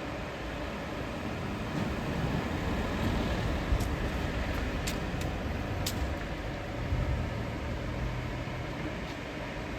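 Inside a moving bus: steady engine and road rumble that swells for a couple of seconds, a steady low hum near the end, and a few sharp rattles about four to six seconds in.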